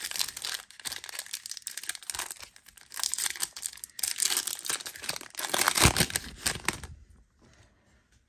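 Foil trading-card pack wrapper crinkling and tearing as the pack is handled and torn open. The crinkling comes in bursts, loudest near the end, and dies away about seven seconds in.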